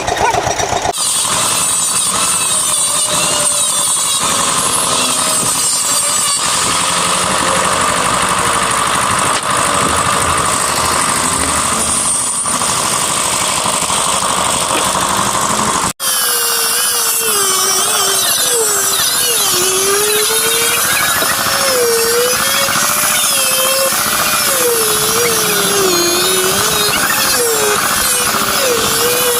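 Power tool working wood, running continuously. After an abrupt cut partway through, its pitch wavers up and down as the load on the tool changes.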